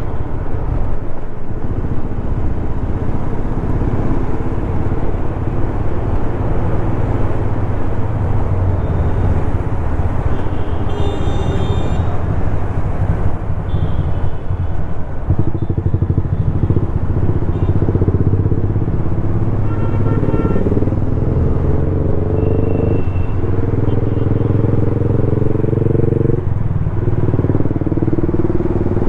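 Bajaj Dominar 400's single-cylinder engine running under way at road speed. From about halfway through, the engine note climbs and drops back twice near the end, as with upshifts. Brief high tones from other traffic sound around halfway.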